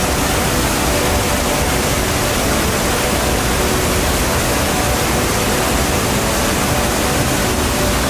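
Waterfall plunging into its pool: a steady, even rushing of falling water, with faint music underneath.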